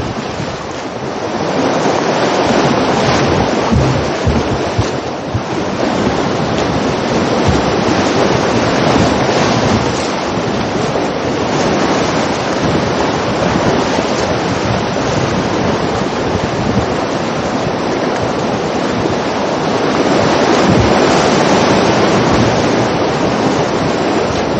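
River rapids rushing and splashing around a paddled canoe, a loud steady whitewater rush that swells a little near the end, with wind buffeting the microphone.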